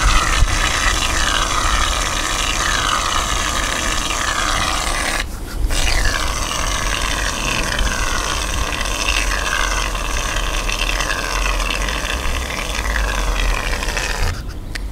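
Aerosol can of shaving foam spraying foam into a cement-and-vermiculite mix with a steady hiss. It breaks off briefly about five seconds in, then runs on and stops shortly before the end as the can is emptied.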